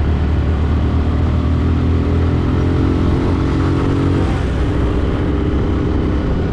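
Vehicle engine running steadily on the move, with road and wind noise; its pitch eases up and then drops about four seconds in.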